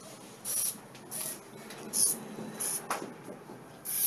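Hobby servo motors whirring in short, high-pitched bursts, about five in four seconds, as they wind in and let out the strings that bend and straighten the cardboard hand's fingers.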